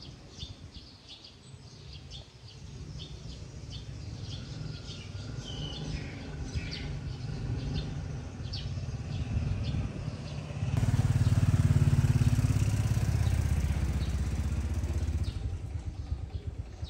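Small birds chirping over a low engine rumble from motor traffic. About eleven seconds in, a vehicle engine suddenly gets much louder and runs steadily for about four seconds, then eases off.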